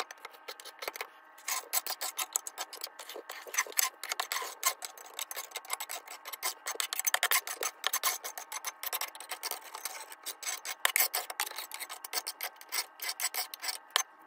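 Soot and ash being scraped and swept off the brick floor of a stove's firebox with hand cleaning tools: a continuous fast rasping that grows denser about a second and a half in.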